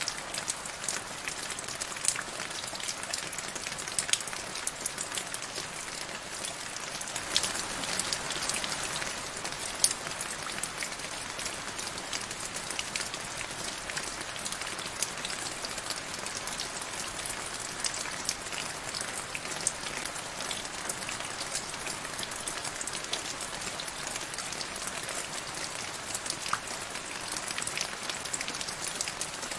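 Steady rain falling into a shallow puddle: an even hiss with many small, separate drop splashes, a little heavier between about seven and nine seconds in.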